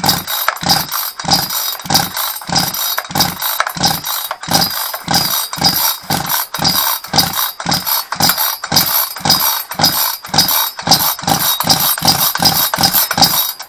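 Recoil starter of a new Sterwins gasoline chainsaw pulled over and over, cranking the two-stroke engine in a steady rhythm of about two strokes a second, with the throttle locked open and a compression gauge in the spark-plug hole. This is a compression test, and the gauge climbs to only about 3 atmospheres, which the owner calls very low and puts down to the new piston rings not yet bedded in.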